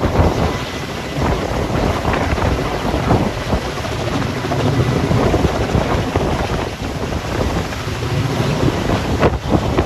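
Kamov Ka-32A helicopter hovering low overhead with its load line down: steady rotor and turbine noise, with rotor downwash gusting across the microphone.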